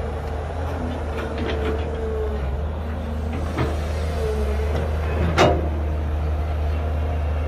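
Heavy diesel engine of an excavator or dump truck running steadily with a low drone, with a short knock about three and a half seconds in and a louder sharp clank about five and a half seconds in.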